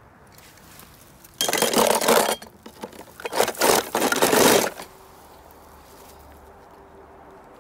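Die-cast toy cars rattling and scraping in a plastic tub, in two loud bursts, the second longer, ending a little under five seconds in.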